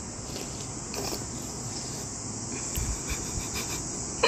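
A steady high-pitched hiss, with a few faint soft clicks and sips as a child eats soup with a ceramic spoon from a ceramic bowl.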